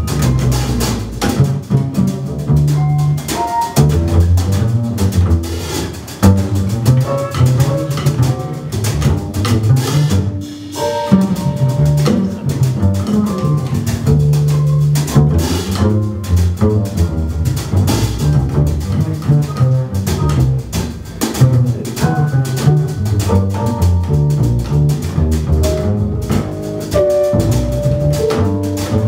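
Live jazz piano trio playing a bossa nova, with the plucked upright double bass loudest in a clear run of low notes, over drum kit and piano.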